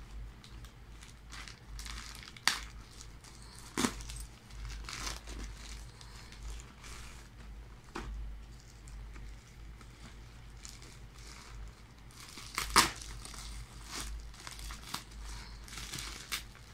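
Plastic packaging and bubble wrap crinkling as hands handle and unwrap a small parcel, with a few sharper crackles, the loudest about thirteen seconds in.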